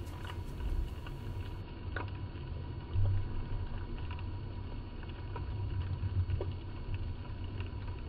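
Underwater ambience picked up through a camera housing on a dive: an uneven low rumble with a few faint, sharp clicks scattered through it.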